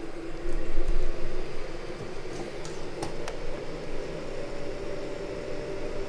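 VEVOR diesel heater's blower fan running in fan-only mode with no combustion, a steady hum whose pitch creeps up around the middle as it settles at the higher level-4 speed. A few light clicks about three seconds in.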